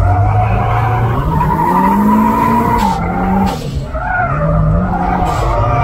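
Drift car's engine revving up and down repeatedly as the car slides, with tyre squeal, heard from inside the cabin. The engine note falls away briefly about three and a half seconds in, then climbs again.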